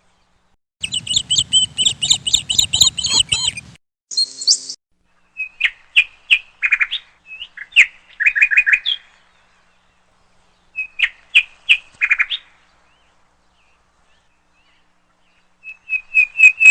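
Small birds chirping and tweeting in clusters of quick, high calls. The densest flurry comes about a second in and lasts some three seconds. Scattered chirps follow, with silent gaps of a couple of seconds between the groups.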